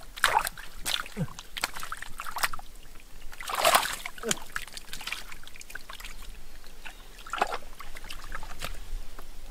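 Hands splashing and sloshing in shallow muddy water while groping for fish in the mud, in irregular short splashes, the loudest a little under four seconds in.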